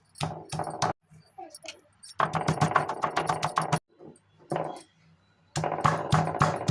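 Rapid dense clatter of kitchen work in two bursts of about one and a half seconds each, starting and stopping abruptly, with a few separate clicks and knocks before them.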